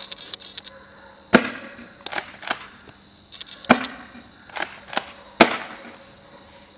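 Swiss Arms Shotgun MS spring-powered pump-action airsoft shotgun firing three sharp shots about two seconds apart, with the pump racked back and forward in two quick clicks between shots.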